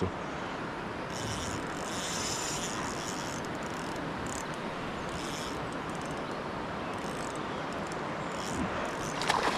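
Steady rushing noise of river water, with brighter hissing stretches about a second in and again around four to five seconds in.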